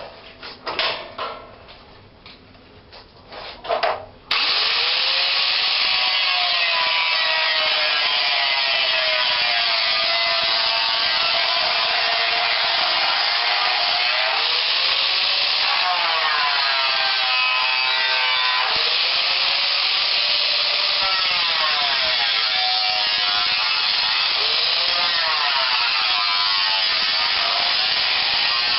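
A few sharp knocks, then from about four seconds in a power tool runs continuously on bodywork, its motor pitch repeatedly dipping and recovering as it is pressed on and eased off.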